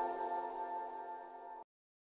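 Background piano music with held chords, fading down and then cutting off abruptly to silence about three-quarters of the way through.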